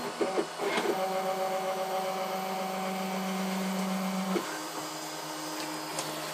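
3D printer's stepper motors whining in steady tones while printing. The pitch jumps to a new note about a second in and again a little after four seconds as the moves change.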